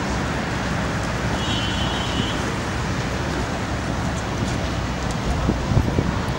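Steady outdoor city street noise with a low traffic hum. A brief high squeal comes about a second and a half in, and a few sharp knocks come near the end.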